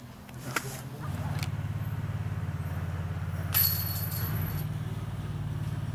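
A motor vehicle's engine running, a steady low rumble that sets in about a second in. About three and a half seconds in there is a brief sharp noise with a ringing edge.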